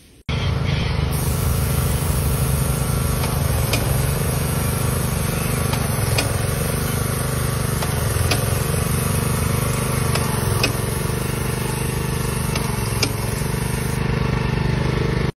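Small petrol engine of an airless line-marking paint sprayer running steadily, with the hiss of the spray gun laying paint and a few faint clicks.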